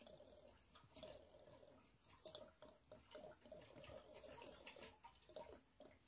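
Water trickling and dripping from a loosened radiator valve into a plastic tray as the radiator drains; faint, with irregular drips and splashes.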